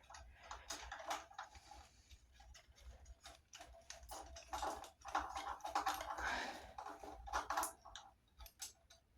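Faint, irregular clicks, taps and light scraping from hands fitting a small mounting bolt and turn-signal wiring into a scooter's front cage.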